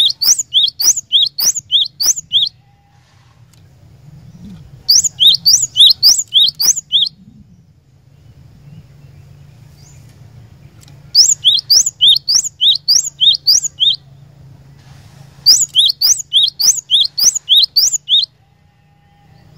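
Cinereous tit (glatik batu) singing in four bursts, each a fast run of repeated sharp, high, two-part whistled notes at about three notes a second, with pauses of a few seconds between bursts. A faint steady low hum lies underneath.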